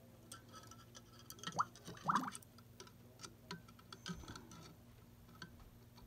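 Light clicks and taps of a metal lighter case and alligator clip against a glass jar as the case is lowered into and moved about in copper plating solution, with two short rising squeaks about one and a half and two seconds in, over a faint steady hum.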